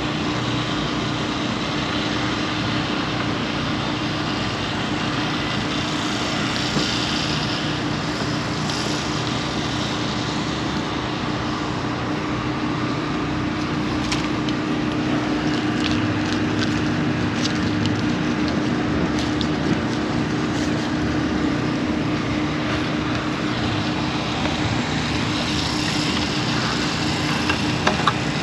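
A motor running steadily with a constant hum, and a few light clicks in the middle.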